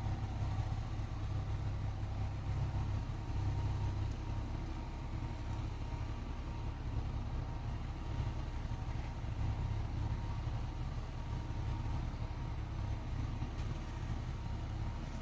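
Steady low rumble of a motor vehicle running, with no marked rises or falls.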